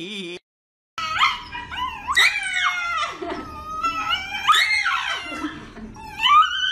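Shiba Inu screaming: about five high, drawn-out cries that rise and fall in pitch, starting after a brief silence about a second in, while its front paw is held.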